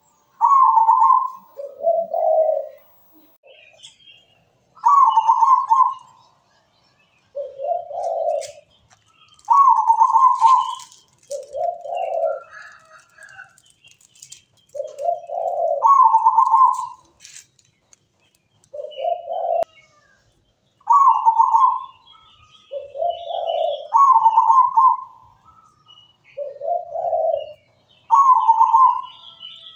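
Local zebra dove (perkutut) singing its cooing song: rolling coos, each about a second long, with a higher coo and a lower one alternating over and over.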